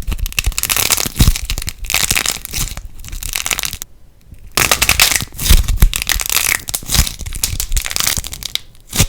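Light plasticine being squeezed and kneaded by hand, crackling densely with many small pops, with a short break about four seconds in.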